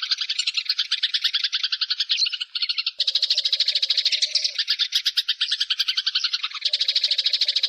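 Eurasian tree sparrows chattering: fast strings of short chirps, many a second, with several birds overlapping. The chorus changes about three seconds in and again near the end.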